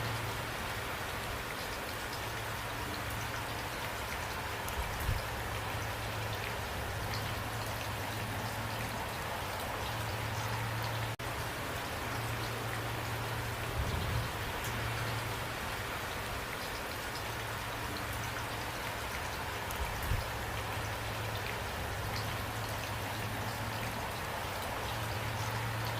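Steady rain falling, with scattered individual drop impacts, and a low hum that swells and fades several times. The sound dips out very briefly about eleven seconds in.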